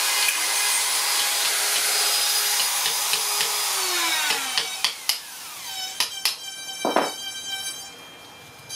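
Hand-held power carving tool cutting into wood, its motor whining steadily under the grinding noise, then spinning down with a falling pitch about four seconds in. A few sharp knocks follow in the quieter second half.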